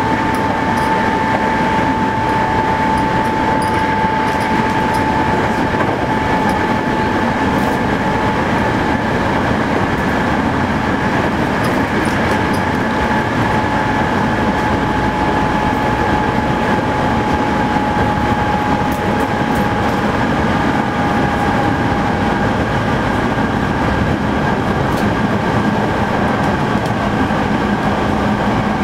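Hankyu 8000 series electric train with Toshiba GTO-VVVF traction equipment running at speed: a steady rumble of wheels on rail with a whine from the drive that slowly sinks in pitch.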